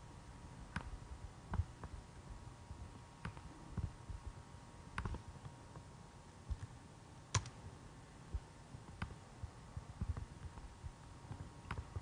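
Faint, irregular clicks of computer keyboard keys and a mouse being worked, one sharper click about seven seconds in.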